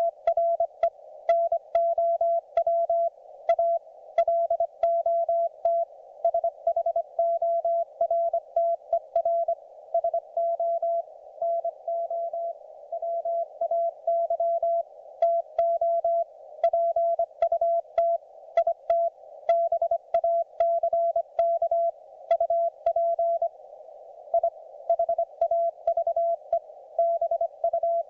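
Morse code (CW) audio from a YouKits HB-1B QRP transceiver: a single steady mid-pitched tone keyed on and off in quick dots and dashes, over a constant narrow band of receiver hiss, with faint clicks at the keying.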